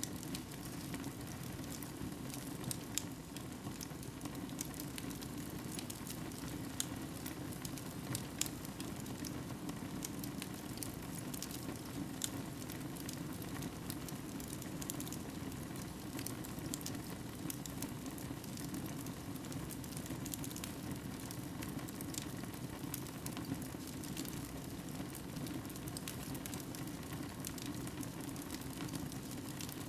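Fire burning in a fireplace: a steady low rush of flames with scattered sharp crackles and pops.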